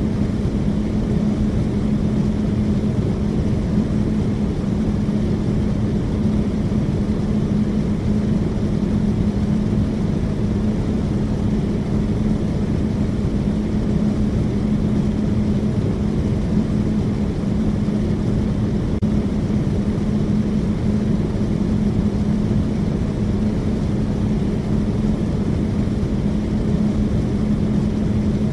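Steady low machine drone with one constant humming tone, holding an even level throughout.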